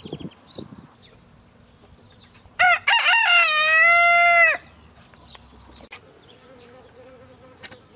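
A rooster crowing once, about two seconds long, starting about two and a half seconds in: a short first note, then a long held note that drops off at the end. Faint bird chirps come before it and a faint insect buzz after.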